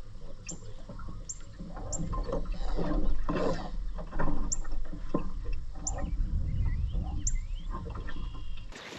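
Wind rumbling on the microphone and water splashing and knocking against a small boat on choppy water, with a bird giving short, high chirps every second or so.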